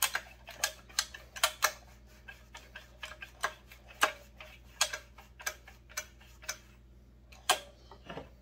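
Sharp metallic clicks and taps from hand work at the exposed crankshaft end of a McCulloch PM 700 chainsaw with the clutch removed, about two a second at uneven spacing, each with a short ring.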